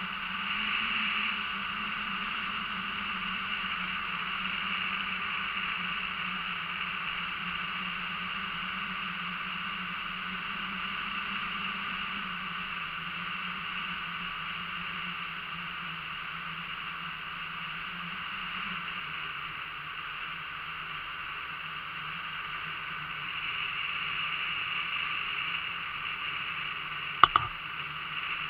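Motorboat under way: a steady engine hum over a hiss of water and wind, the hum dropping slightly in pitch about two-thirds through. Two sharp knocks near the end.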